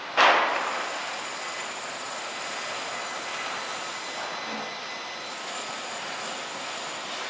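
Steady rushing noise of city traffic on a wet street, opening with a loud sudden rush that dies away within about a second.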